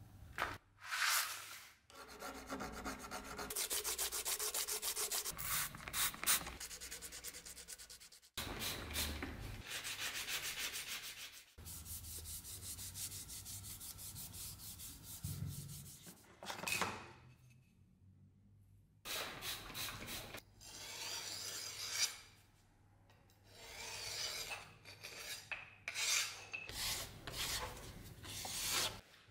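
A cloth rubbing linseed oil into a moose-horn knife handle in rapid back-and-forth strokes, in several bursts. Near the end comes the blade being stroked along a leather strop.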